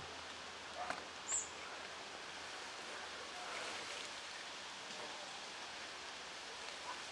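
Quiet rural outdoor ambience: a steady even hiss with a few short, high bird chirps and clicks, the loudest a little over a second in.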